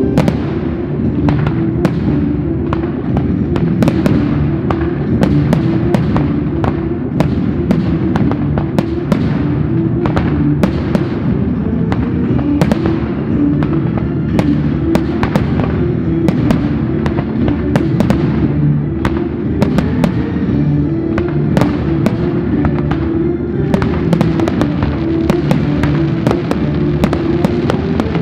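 Fireworks display: aerial shells bursting and crackling in rapid, dense succession, many sharp reports overlapping throughout. Music plays underneath, with steady low notes.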